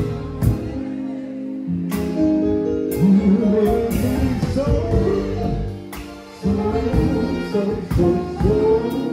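Live band playing drums, keyboard and electric guitar, with a man singing into a handheld microphone over the music.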